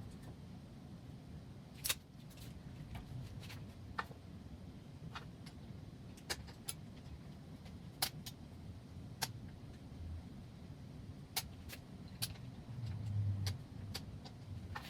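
Scattered sharp metallic clicks and clinks, about a dozen spread out, over a low steady rumble, with a dull thump about thirteen seconds in: a workpiece and a saw being handled while the saw is not running.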